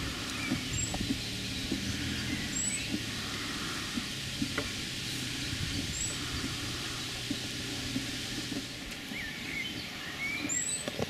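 Low background noise with a few short, high bird chirps scattered through it, and a low steady hum that stops about nine seconds in.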